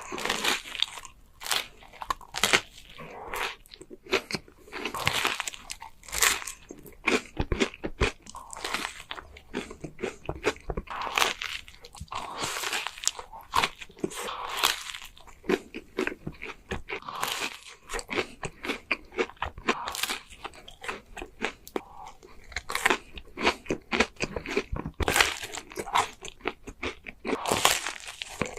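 Close-miked eating of a cream-filled waffle: repeated crisp crunching bites with chewing between, irregular all the way through.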